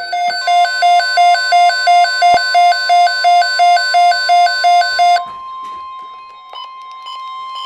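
Electronic alert beeping about three times a second over the steady NOAA Weather Radio warning alarm tone. The beeping stops about five seconds in while the steady tone carries on.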